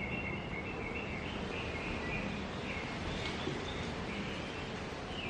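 Steady background noise with faint, short high-pitched chirps coming and going.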